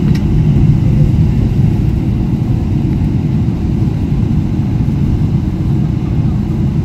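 Steady low rumble inside the cabin of a Boeing 777 airliner as it taxis.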